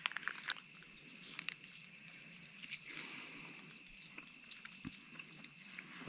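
Faint lip smacks and small wet mouth clicks from someone tasting a mouthful of sauce, over a steady high-pitched drone of insects.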